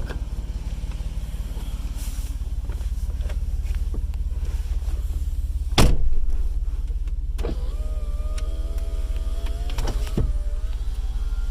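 Jeep Wrangler engine idling steadily, with a loud knock about six seconds in and a wavering whine from about seven and a half to ten seconds in.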